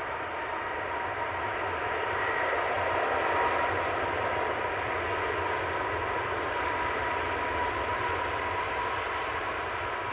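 Rolls-Royce Trent XWB turbofans of an Airbus A350-900 running steadily at low power as the airliner taxis: a rushing hum with a thin whine over it, swelling slightly a few seconds in.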